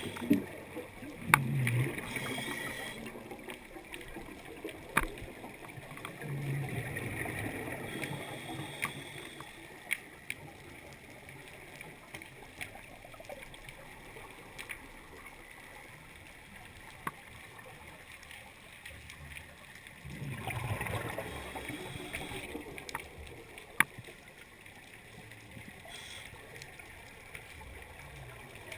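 Recorded underwater: scuba regulator exhaust bubbles gurgling in a few long bursts as the diver breathes out, over a steady hiss, with scattered sharp clicks.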